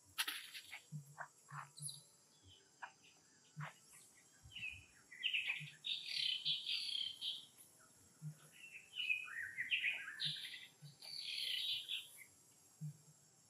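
Birds chirping in short high runs, with a few sharp rustles and taps in the dry leaves during the first few seconds.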